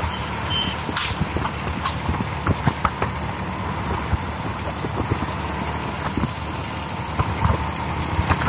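Motorbike engine running steadily while riding, with wind and road noise on a phone's microphone. Frequent irregular clicks and knocks sound over it.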